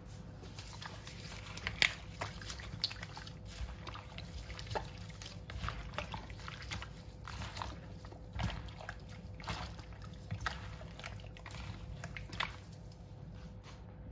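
Raw chicken pieces being mixed by a gloved hand in a plastic bowl of soy sauce and vinegar marinade: irregular wet squelches and sloshes.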